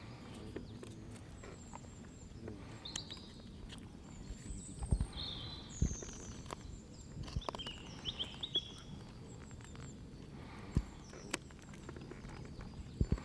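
Knife carving green willow, scattered small clicks and scrapes of the blade as the whistle's inner piece is thinned, with bird chirps in the background.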